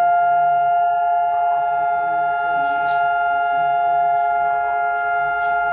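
Emergency alert alarm tone: a steady electronic drone of several held pitches sounding together, with no change in pitch. A faint voice runs underneath it.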